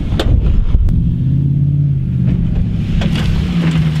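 Pickup truck engine running as the truck drives over rough dirt: a rough low rumble with a couple of knocks at first, then from about a second in a steady engine note that shifts slightly in pitch.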